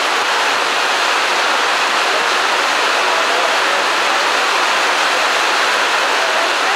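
Heavy rain pouring down: a loud, steady, even hiss with no letup.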